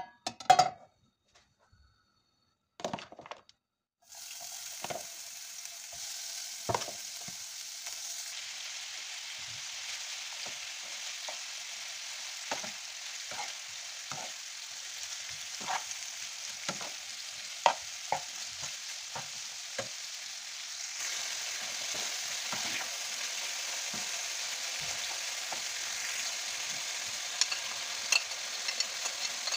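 Minced meat frying in hot oil in a frying pan, sizzling steadily, while a metal spoon stirs it, scraping and knocking against the pan about once a second. The sizzle starts suddenly about four seconds in, as the meat goes into the hot oil.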